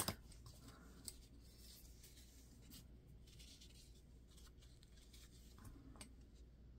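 Faint rustling and scratching of craft paper being handled and worked on a tabletop, with a sharp click right at the start and a couple of light ticks, one about a second in and one near the end.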